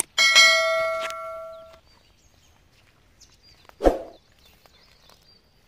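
A metal object struck once, ringing with several clear tones that fade over about a second and a half. About four seconds in comes a single dull knock, with faint bird chirps around it.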